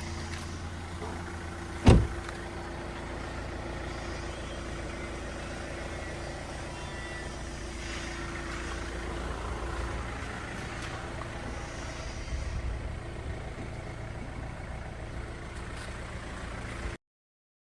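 Car engine running steadily, with one sharp knock about two seconds in; the sound cuts off abruptly near the end.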